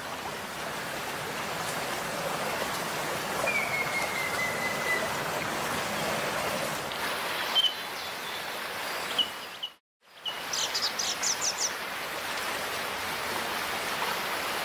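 Stream water running steadily, with birds calling over it: a single falling whistled note about four seconds in, then short chirps and a quick high trill after about ten seconds. The sound cuts out briefly just before the trill.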